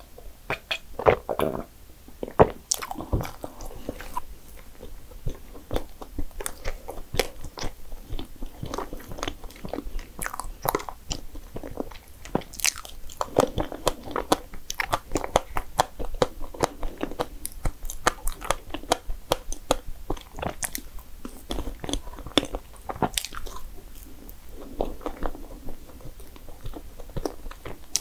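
Close-miked eating: a person biting and chewing dessert, with many short crunches throughout.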